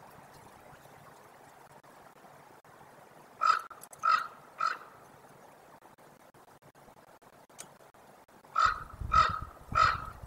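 Common ravens calling: a series of three short, harsh calls about three and a half seconds in, then another series of three near the end.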